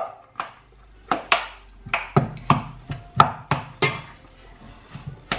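A metal spoon knocking and scraping against a stainless steel mixing bowl while mixing minced pork and beef: about a dozen short, irregular clinks.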